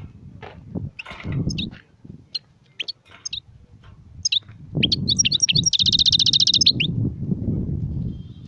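European goldfinch singing: scattered short chirps and twitters, then about five seconds in a loud, very fast trill of rapidly repeated notes lasting over a second. A low rumbling background noise comes and goes underneath.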